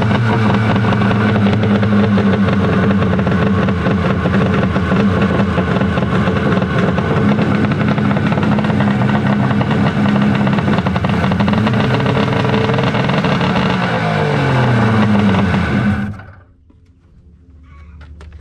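Kawasaki 1100 two-stroke triple jet-ski engine running steadily, then falling in pitch and shutting off about sixteen seconds in.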